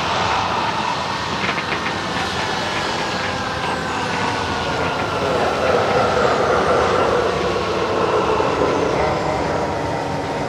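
A loud, steady rushing roar of dramatic sound effects, with a thin whine slowly falling in pitch through it.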